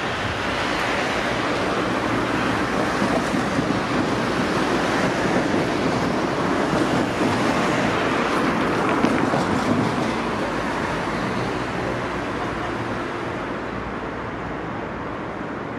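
Suburban electric train passing through a level crossing: a rushing rumble that builds over the first few seconds, holds, and fades away from about ten seconds in.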